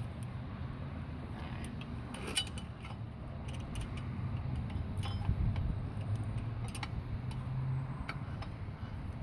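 Scattered light metallic clicks and taps of drum-brake shoes, spring and hand tools being handled and worked into place, over a steady low hum.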